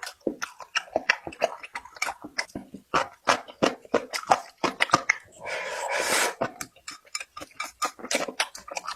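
Close-up chewing and mouth sounds: a quick, irregular run of wet smacks and clicks, with a noisy, breathy sound lasting about a second midway through.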